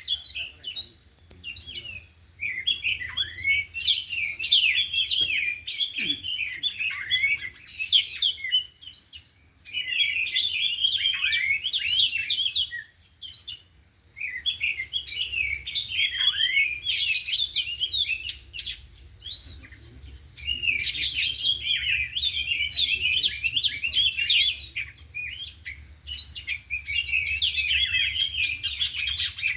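Several oriental magpie-robins (kacer) singing: long runs of rapid, varied chirps and whistles broken by short pauses, the birds working through their learned song fills.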